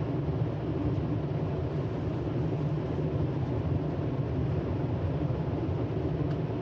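Steady low hum and rush of air-moving machinery in a paint shop, even throughout with no breaks.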